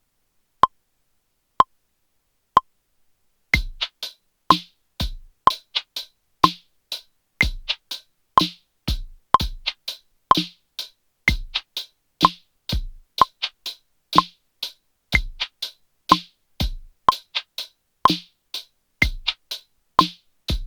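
Three single clicks about a second apart, then a finger-drummed electronic beat on a pad controller starts about three and a half seconds in: kick, snare and hi-hat samples in a steady repeating groove, with an extra sample layered in.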